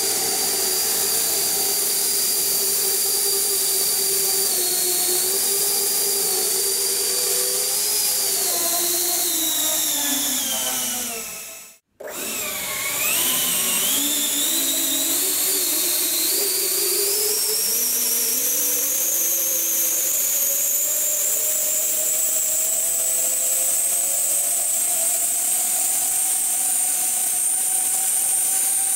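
Electric ducted fans of a Do-31 VTOL RC model running with a high whine; the pitch falls as they spool down and the sound cuts out about twelve seconds in. The whine then returns and climbs steadily in pitch as the fans spool up again toward take-off power.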